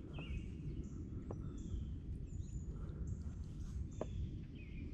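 Several birds chirping and calling with short whistled notes over a steady low rumble, with a few faint clicks.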